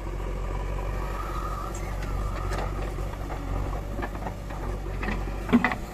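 JCB 3DX backhoe loader's diesel engine running steadily as the backhoe works, with scattered knocks as soil is dumped into a tipper truck's steel bed. A short, loud sound just before the end.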